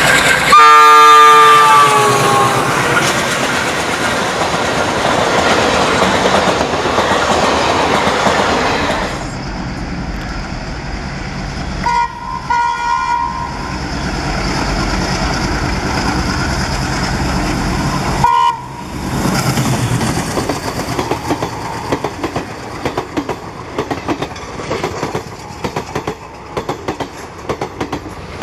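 Indian Railways diesel locomotives passing with passenger trains. A multi-tone horn sounds as a locomotive goes by, its pitch dropping, followed by the train's loud passing rumble; later come short horn toots and a brief horn blast. Near the end, passenger coaches roll past with a rhythmic clickety-clack of wheels over rail joints.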